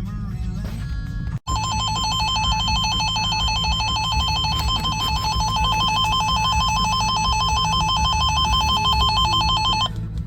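Weather radio emergency alert tone: a loud warbling alarm near 1 kHz that starts after a brief dropout about a second and a half in and runs for about eight seconds before cutting off, announcing a new warning. A steady low vehicle hum runs underneath.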